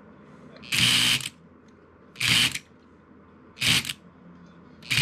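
Lionel 3472 milk car's unloading mechanism buzzing in four short bursts of about half a second each, as the control button is pressed and the figure inside kicks a milk can out onto the platform.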